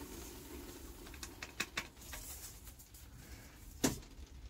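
Gritty bonsai soil mix pattering with scattered light ticks as it is tipped from an aluminium colander and shaken through mesh into a plastic bucket. Near the end, a single sharp knock as the metal colander is set down.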